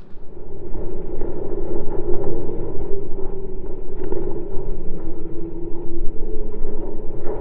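Loud, steady low rumble with a strong hum and a few faint ticks.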